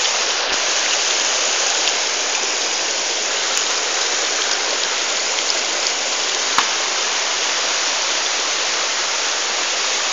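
Shallow creek rushing over rocks and small waterfalls of two to three feet, a steady rush of water.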